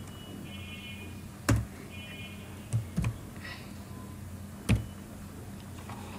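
A few separate keystrokes on a computer keyboard, four in all, spaced out as code is typed, over a steady low hum.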